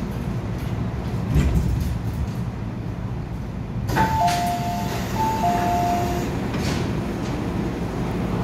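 MTR door-closing chime: a two-note high-low chime sounded twice in a row, starting with a click about four seconds in, over the steady hum of an Island Line M-Train standing at the platform.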